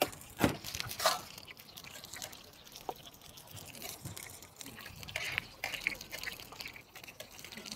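Scallion pancakes frying in a wide pan of hot oil, the oil sizzling and crackling steadily. A few sharp clicks of a metal spatula against the pan come in the first second, and one more about three seconds in.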